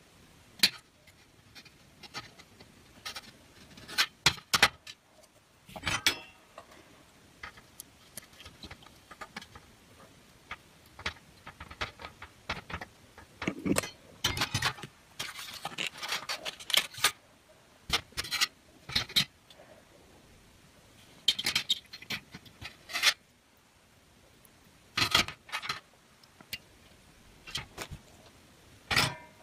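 Irregular small clicks, taps and rubbing of electronic components and a printed circuit board being handled, with a longer stretch of scraping and rustling near the middle as the board is turned over and set down.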